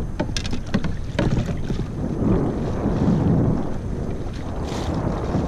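Wind buffeting the microphone in a steady low rumble, with a quick series of knocks and clicks in the first second or so as a long stake-out pole is pulled up and handled on a small round plastic boat. A short hiss comes near the end.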